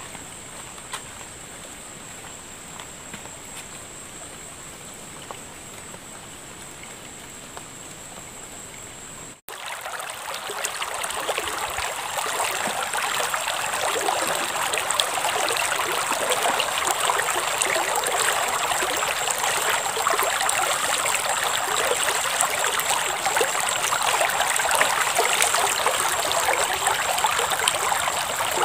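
Shallow river water flowing: a quieter steady wash at first, then, after a brief dropout about nine seconds in, a louder, even rushing of the stream that holds to the end.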